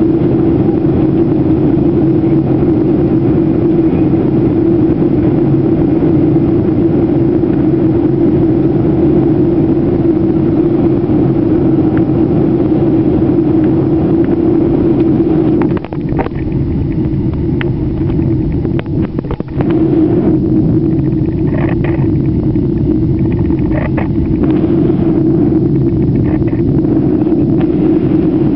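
Steady engine and propeller drone inside a light aircraft's cabin in flight, with a strong held hum over a low rumble. Partway through it dips briefly, with a few sharp clicks.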